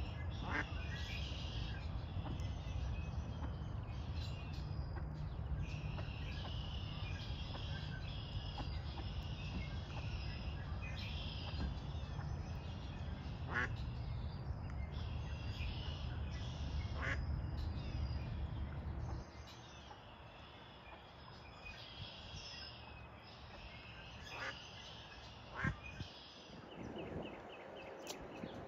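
Ducks quacking amid constant songbird chatter, over a low steady rumble that stops abruptly about two-thirds of the way through.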